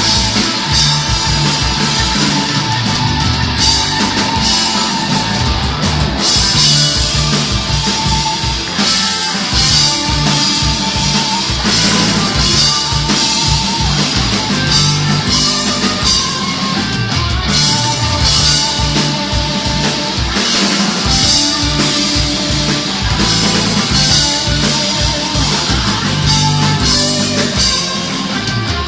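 Live rock band playing an instrumental passage: drum kit keeping a steady beat under guitar.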